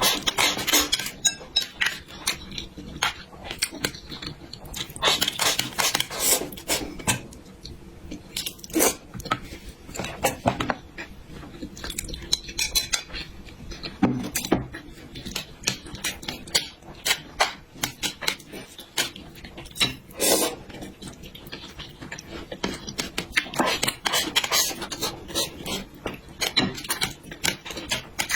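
Close-miked eating: irregular clinks and scrapes of utensils against dishes, with short noisy mouth sounds of eating between them.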